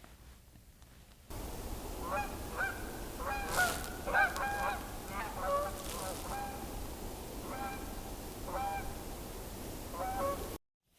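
Geese honking: many short, pitched calls, some overlapping, over a steady background hiss. The calls begin abruptly just after a second in and cut off suddenly shortly before the end.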